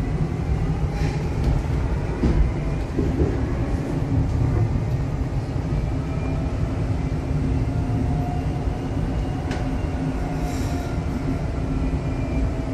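Rubber-tyred VAL automatic metro train running at speed, heard from inside the car: a steady low rumble with a faint motor whine and a few light rattles.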